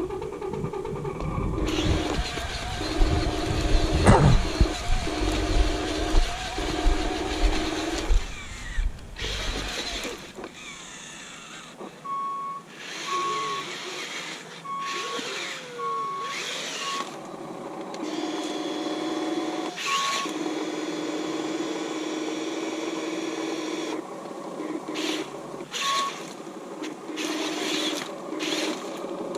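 Radio-controlled construction vehicles working: a steady motor hum that stops and starts again, with heavy low rumbling and knocks in the first third. Midway comes a run of short, evenly spaced high beeps like a reversing alarm.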